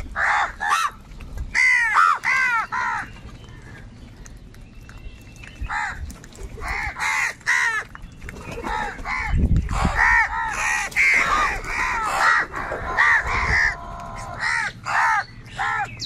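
A flock of house crows cawing, many harsh calls overlapping one another. The calling thins out a few seconds in, then picks up again and grows dense.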